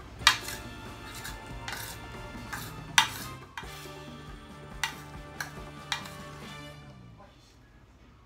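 A metal spoon clinking and scraping against a large metal platter while food is scooped up: a series of sharp clinks, the loudest near the start and about three seconds in, thinning out towards the end. Soft background music plays underneath.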